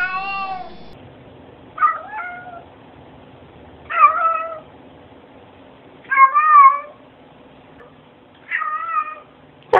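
Domestic cats meowing: one meow ends about a second in, then four separate short meows come roughly two seconds apart, some bending up and down in pitch.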